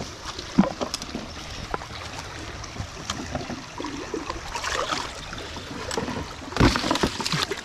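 Muddy creek water running, with scattered clicks and scuffs from handling. A plastic bait bucket is dipped into the current and fills with a gurgling splash about three-quarters of the way through.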